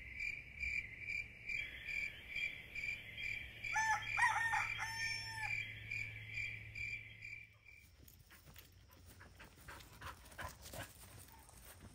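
A rooster crowing once, about four seconds in, over a steady high insect chirping at about five pulses a second. Both stop abruptly about eight seconds in, leaving faint outdoor sound.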